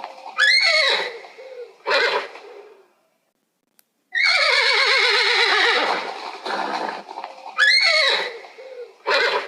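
An animal calling loudly in a repeated sequence: a sharp high cry that falls in pitch, a short call, about a second of silence, then a long wavering call, and the high falling cry and short call again.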